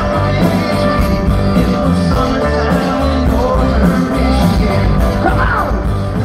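Live amplified rock band playing loudly, with electric guitars, a pulsing bass and drums, and a voice singing.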